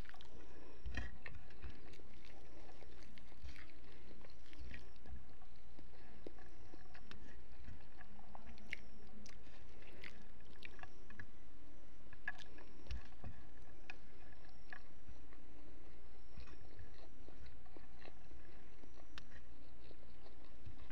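A person chewing and eating with her hands close to the microphone: soft mouth noises with scattered small clicks and smacks.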